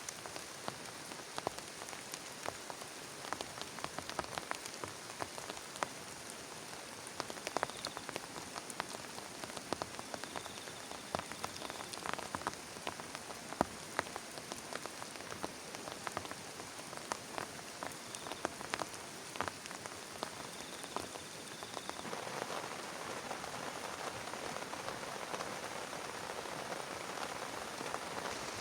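Heavy rain falling on a plastic tarp, with many sharp individual drop hits over a steady hiss. About 22 seconds in, the rain gets heavier and the hiss grows denser and louder.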